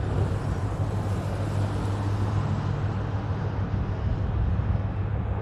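Steady low drone of aircraft engines passing overhead.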